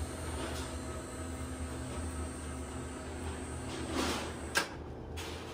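Electric chain hoist motor running steadily as it lifts a cast crane-hook blank. The hum stops about four seconds in, and a single sharp knock follows half a second later.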